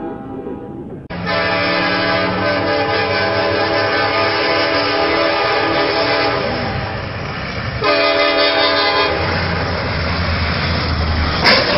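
Diesel freight locomotive's air horn blowing a long warning blast of about five seconds, then, after a brief break, a second shorter blast as the train closes on a road crossing. Near the end comes a sudden loud crash as the train strikes a semi-truck's trailer.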